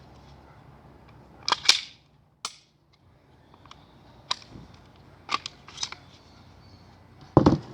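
Glock 34 pistol being handled during a safety check and takedown: a series of sharp mechanical clicks and clacks from the slide and parts, a few at a time, the loudest pair near the end.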